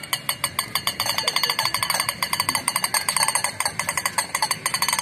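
Plastic wheeled push toys rolled along paving, giving a rapid, irregular clacking and rattling of many clicks a second.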